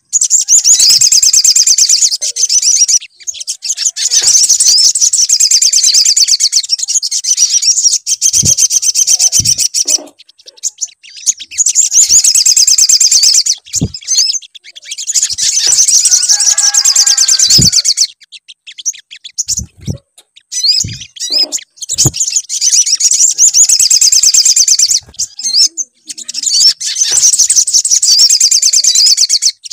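Recorded song of a sogon (little spiderhunter) played as a lure to make other birds sing. It comes as long runs of rapid, high-pitched trilling chatter, each several seconds long, with short pauses between, and a few brief low thumps.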